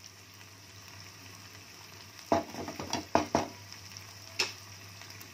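Paneer cubes sizzling steadily in hot oil in a frying pan. A few scrapes and taps of a wooden spatula against the pan come a little after halfway, and one more tap follows about a second later.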